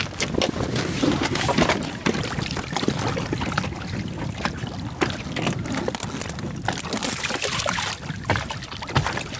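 A wet gillnet being hauled by hand over the tube of an inflatable boat: water splashing and dripping, with many scattered knocks and rustles as the net and floats come aboard.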